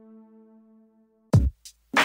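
Background electronic music: a held chord fades away, and after a brief gap a drum-machine beat starts, with a couple of hits near the end.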